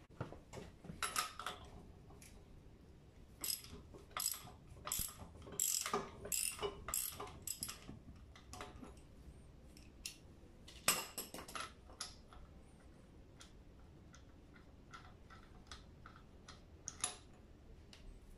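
Socket ratchet clicking in quick runs with scattered metal clicks, as the already-loosened pinion nut is undone from the differential's pinion flange.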